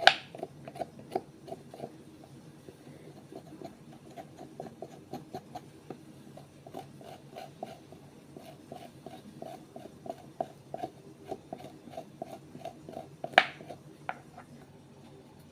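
Peeling by hand: quick, even scraping strokes of a blade across the skin of the produce, about three or four a second, with a sharp knock near the end.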